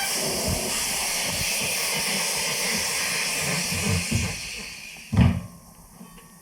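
Compressed air hissing steadily into a motorcycle tyre on a tyre-changing machine, tapering off after about four seconds, then a single sharp thump just after five seconds.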